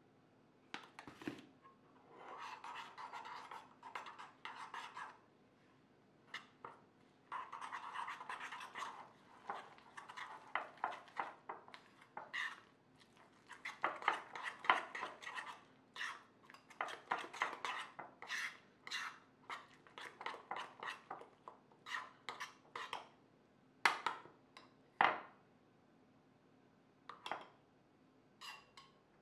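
Metal spoon stirring a thick mix of protein powder, oats and yogurt in a ceramic bowl. Two stretches of steady scraping come first, then a run of short clinks and scrapes of spoon against the bowl that thin out near the end.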